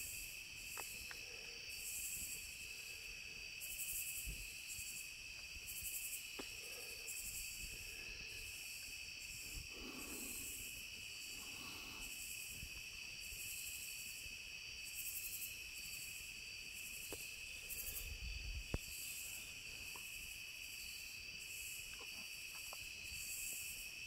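Night insect chorus: a steady high cricket trill with higher, pulsing insect calls on top, and a few faint ticks.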